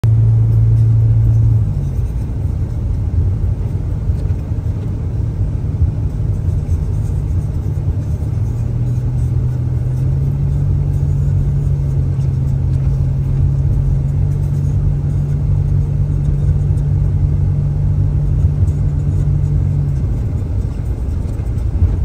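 Car cabin noise while driving: a low engine drone and rumbling road noise, the drone shifting in pitch a few times as speed changes.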